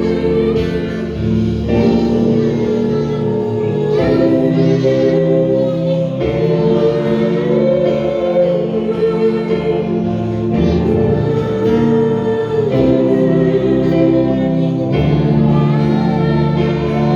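Live worship music: a group of voices singing over sustained keyboard-style chords that change every couple of seconds.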